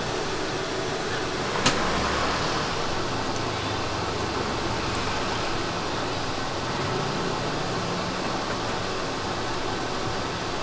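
Steady hum and hiss of street ambience, with one sharp click about a second and a half in.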